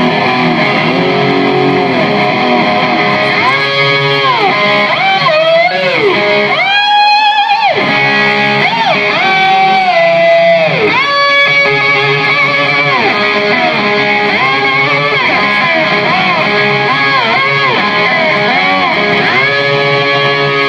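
Live rock music led by electric slide guitar, its notes swooping up and down in pitch again and again, imitating a motor scooter revving.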